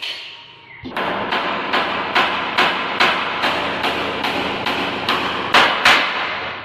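About a dozen quick, evenly spaced hammer taps on a wooden stair tread, roughly two and a half a second, with the last two the loudest.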